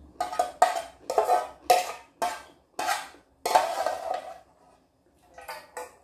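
Loud slurping of ramen from a pot lifted to the mouth: about eight slurps in quick succession, then two softer ones near the end.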